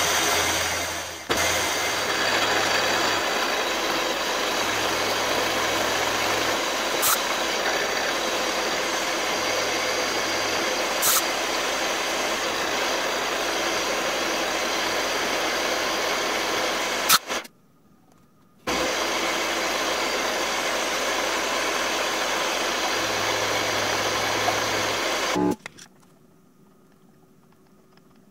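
Milling machine running with an end mill cutting aluminium: a steady whir and cutting hiss with a few sharp ticks. It breaks off for about a second two-thirds of the way through and stops near the end.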